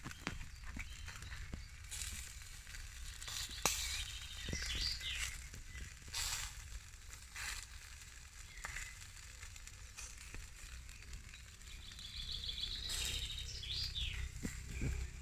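Chicken sizzling over a charcoal barbecue, with fat crackling and popping in irregular sharp clicks. A small bird sings a short trilling phrase about four seconds in and again near the end.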